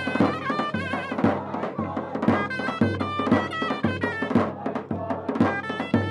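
Bakhtiari folk dance music: a sorna (shawm) plays a shrill, ornamented melody over a dohol drum beating about twice a second.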